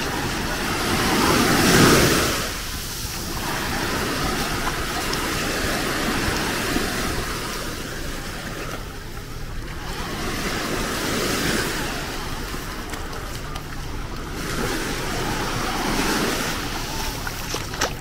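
Small waves breaking and washing up the sand at the water's edge, swelling and fading every few seconds, loudest about two seconds in.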